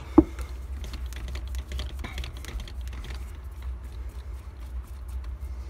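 Gear-shift knob being unscrewed by hand from its shifter lever: scattered small clicks and handling noise, with one sharp click about a quarter second in, over a steady low hum.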